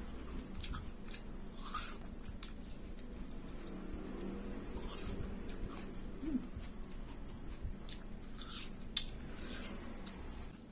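Close-up eating sounds: watermelon being bitten and chewed, with scattered wet mouth clicks and smacks. A sharp click about nine seconds in is the loudest.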